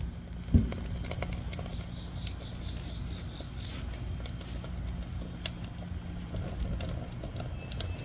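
Split kindling catching from a lit fire starter under stacked charcoal, giving scattered small crackles and ticks over a low steady hum, with one sharp thump about half a second in.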